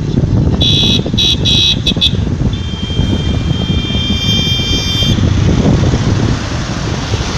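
Steady road and engine rumble inside a moving car, with a vehicle horn sounding in five or six short honks about half a second in, then held in one long honk for about two and a half seconds.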